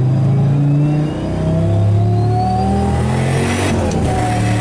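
Turbocharged V10 engine of a Dodge Ram SRT-10 pickup heard from inside the cab, accelerating steadily down the highway, its note stepping and climbing, with a thin whine rising slowly above it.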